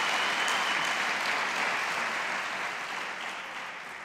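Congregation applauding, the clapping fading away steadily toward the end.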